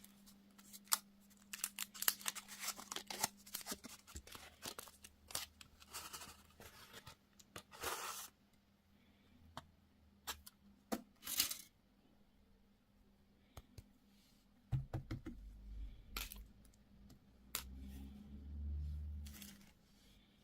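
Plastic candy and toy packaging being torn open and handled, with crisp clicks, tearing and rustling. Toward the end come a few low bumps and handling noises.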